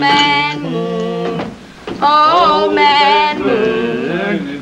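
A man and a woman singing together in long, wavering held notes, the man's voice low and the woman's higher, with a short break about a second and a half in before the singing resumes.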